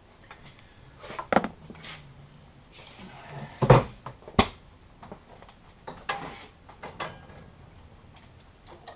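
Irregular knocks, clicks and rustles of gear being handled. The loudest is a knock about three and a half seconds in, followed by a sharp click.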